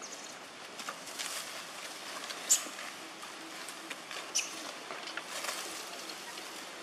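Irregular rustling and crackling of leaves and twigs, with scattered sharp snaps and clicks, one loudest about two and a half seconds in.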